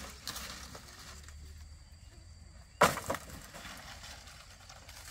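A single sharp knock nearly three seconds in, followed at once by a lighter second knock.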